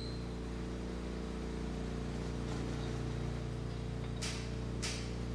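Steady low machinery hum made of several steady tones. A little over four seconds in come two short scraping sounds about half a second apart, the metal high-pressure suction valve sliding into its bore in the compressor block.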